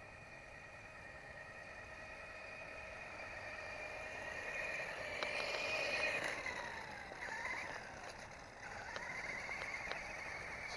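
Electric motor whine of a Sharper Image Mountain Thrasher RC truck running at full throttle on a 3S LiPo. The high, steady whine grows louder for about six seconds, drops in pitch about seven seconds in, then climbs again near the end.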